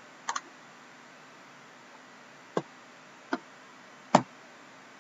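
A few short, sharp clicks and taps over quiet hiss: a double click near the start, then single taps a little under a second apart towards the end, the last one the loudest, as a sealed cardboard card box is handled.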